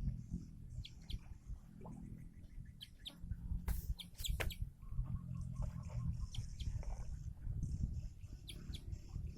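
Bird chirping: many short, high chirps over a low rumble, with a couple of sharp clicks near the middle.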